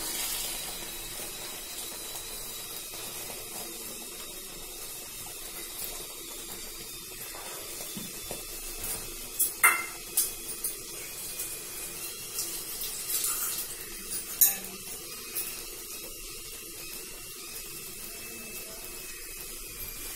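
Metal kitchen utensils clinking a handful of times, sharp and brief, from about halfway through to about three-quarters through. The two loudest clinks fall near the middle and about two-thirds of the way in. Under them runs a faint steady hiss from the pan on the stove.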